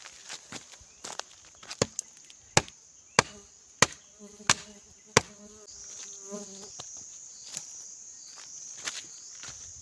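Insects buzzing steadily at a high pitch, with a run of sharp, evenly paced footsteps on dry ground and crackling twigs, about one every two-thirds of a second, through the first half.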